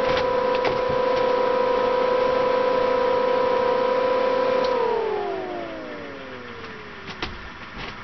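A 5,000 BTU mini air conditioner, powered through an off-grid inverter, running with a steady hum. About five seconds in, the hum slides down in pitch and fades as the inverter shuts down and the unit loses power.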